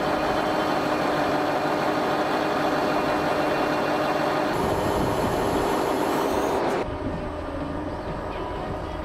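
Heavy vehicle engine running steadily, with a steady hum of a few tones. Almost seven seconds in, the sound cuts abruptly to a quieter, different mechanical noise.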